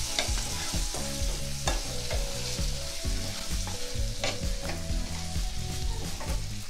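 Cooked mutton being stirred in a pan of sizzling masala: a steady frying sizzle with the spoon scraping and knocking against the pan now and then.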